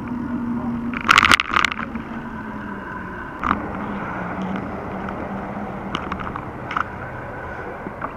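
Mountain bike with a handlebar-mounted action camera rolling over the road, the bike and camera mount clattering sharply over bumps, loudest in a burst of rattles about a second in and with shorter clicks later. A steady low hum runs underneath.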